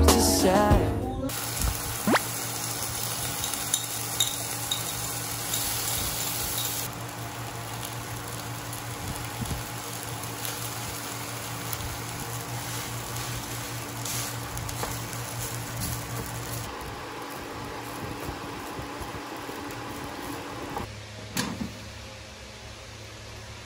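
Rice sizzling as it fries in a pan on an induction cooktop, with a low steady hum underneath. The hum drops away about two-thirds of the way through, and there is a short knock near the end.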